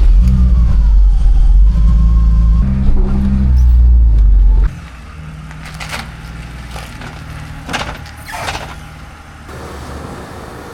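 Car engine running loudly with a deep exhaust note for the first few seconds, then dropping suddenly to a quieter steady idle, with a few sharp clicks.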